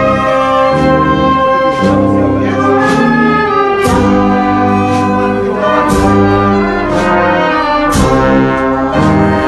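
Brass band of trombone, saxophone and trumpets playing a slow tune in long held notes, with a sharp beat struck about once a second.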